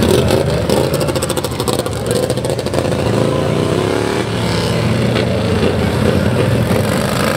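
Several racing lawn tractors' small engines running together, revving up and down as the tractors pull away on the dirt track.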